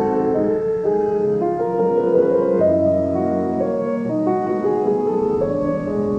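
Instrumental soundtrack music led by piano, with held notes that change every second or so.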